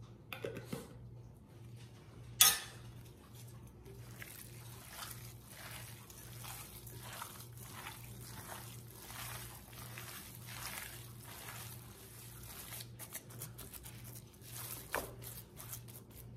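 Raw ground beef and uncooked rice being kneaded by gloved hands in a glass bowl: wet squishing strokes, about two a second, that stop near the end. A sharp knock about two seconds in is the loudest sound.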